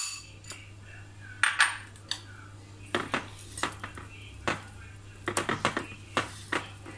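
A spoon and a mixing utensil clinking, knocking and scraping against a small bowl and a glass mixing bowl, in irregular strokes, as Milo powder is stirred by hand into butter icing. A faint steady low hum runs underneath.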